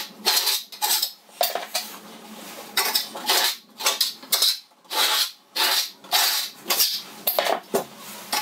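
Steel V-notch trowel scraping across cement backer board, combing grooves into a fresh coat of Hydro Ban liquid waterproofing membrane. It makes repeated short, metallic scraping strokes, about two a second, with a pause of a second or so early in the run.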